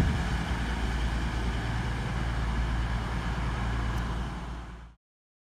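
Class 222 Meridian diesel multiple unit running: a steady low rumble with hiss. It fades quickly and cuts off to silence about five seconds in.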